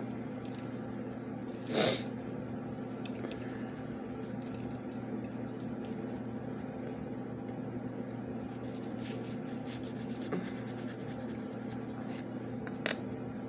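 Steady low electrical hum, with light scraping and rubbing of small objects being handled, a short scrape about two seconds in and a run of small ticks and clicks in the second half.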